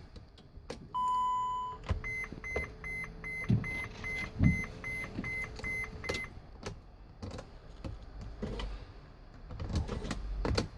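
2011 Mercedes-Benz Sprinter dashboard warning chime: one long beep, then about ten short beeps at roughly three a second, mixed with clicks and knocks of the key and cabin switches as the van is switched on without cranking.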